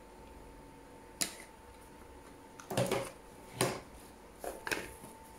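Handling noise from white cardboard packaging and a USB-C cable: a handful of light, brief taps and rustles, spread out over a few seconds, as box parts are picked up and set down.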